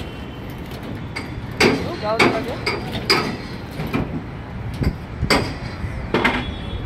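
Hammer striking metal: several sharp, irregular blows, some with a short ring, on a building site where aluminium formwork is being fitted.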